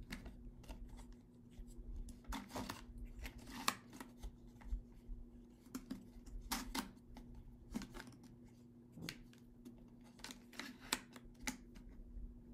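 Irregular light plastic clicks and rattles from working the small hinged pod door on a Selah flavour-cartridge water bottle, which won't latch shut. A faint steady hum runs underneath.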